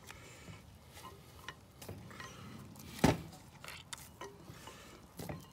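Hands kneading moist damper dough in a mixing bowl: soft squishing and rubbing with a few small taps, and one sharp knock about three seconds in.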